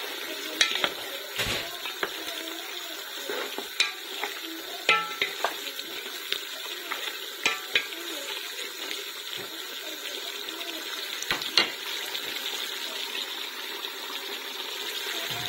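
Meat frying in a deep pot, a steady sizzle, while a wooden spoon stirs it and knocks sharply against the pot several times, mostly in the first half.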